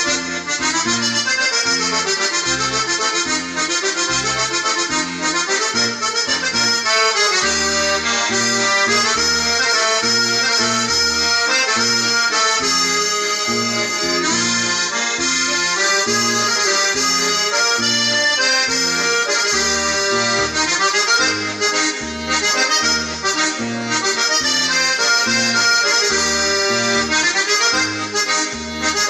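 Solo accordion playing a waltz, a lively melody on the treble side over a regular bass-and-chord accompaniment.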